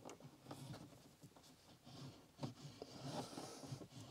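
Faint rustling and scraping of a thin wire being pushed into a small hole in a wall panel, with a few light clicks of handling.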